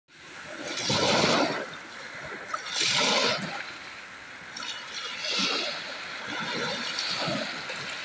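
Small sea waves washing up over a pebble shore, the foam hissing as each one spreads and draws back. The wash swells about every two seconds, the first two surges the loudest.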